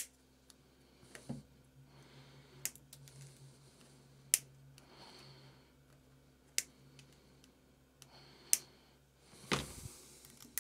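Sharp single snips of small flush cutters trimming component leads on a circuit board, coming every couple of seconds, with faint handling noise between them and a louder burst of handling noise near the end.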